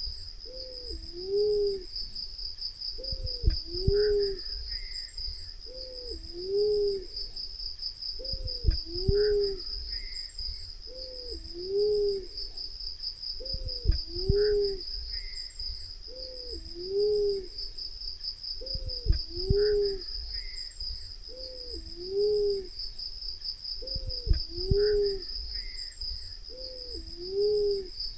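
Black-naped fruit dove lure-call recording: a two-note hooting phrase, each note rising then falling, repeated about every two and a half to three seconds. A steady high insect buzz runs underneath.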